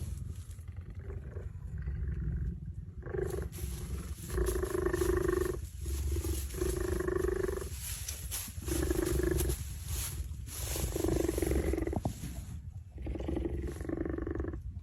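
An animal calling over and over: about six pitched calls, each roughly a second long, with a steady low rumble underneath and between them.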